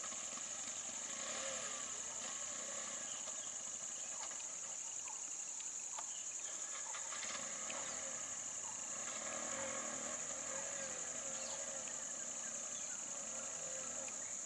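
Vehicle engines idling with birds calling over a steady high hiss.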